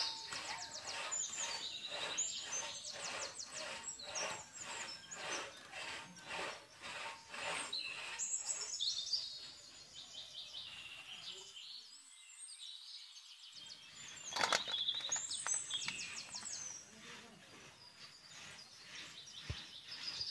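Birds chirping and trilling. Over the first nine seconds there is also a regular run of scraping or rubbing strokes, about two a second, with one sharp knock a few seconds later.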